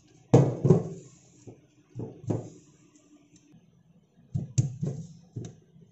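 Dull knocks and thuds as a plastic colander of drained boiled noodles is handled and stirred with a spoon in a sink, in three groups: two shortly after the start, two about two seconds in, and four near the end.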